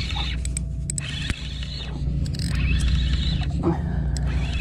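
Penn spinning reel whirring in bursts of about a second, three times, while a hooked blackfish is fought, with a steady low rumble underneath.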